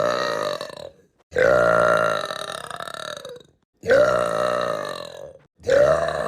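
A woman burping loudly in a string of long burps. One burp ends about a second in, then three more follow, each one to two seconds long, with short pauses between.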